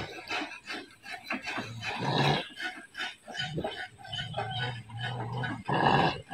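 Dogs making short, irregular low vocal noises in quick succession, with a louder burst near the end.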